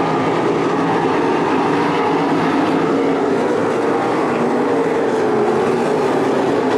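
A field of winged 305 sprint cars racing on a dirt oval, their 305-cubic-inch V8 engines running together as one steady, loud drone.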